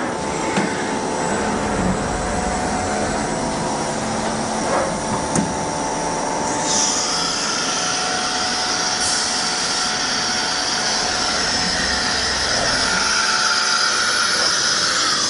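Netmak CNC milling machine running with a steady mechanical hum. About halfway through, a high whine sets in and holds until it stops abruptly near the end.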